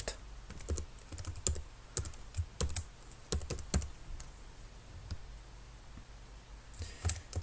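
Typing on a computer keyboard: a run of separate keystrokes for the first few seconds, a pause, then a few more keystrokes near the end.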